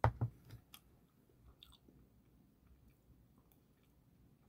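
A person eating mint chocolate ice cream close to the microphone: two knocks at the very start, then soft mouth clicks and smacks while chewing and swallowing.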